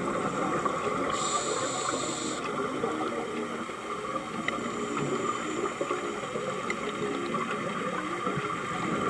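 Underwater sound picked up through a camera housing: a steady wash of water noise with scuba divers' exhaust bubbles, and a short hiss of a regulator breath about a second in.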